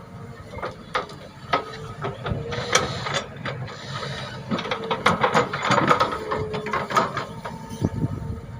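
Excavator working: engine running steadily with many sharp metallic clanks and knocks, busiest in the middle.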